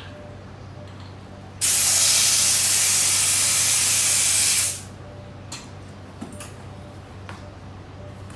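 Compressed air hissing loudly into a motorcycle tire through an air chuck for about three seconds, starting suddenly and tapering off as it stops, with a few light clicks of handling afterwards.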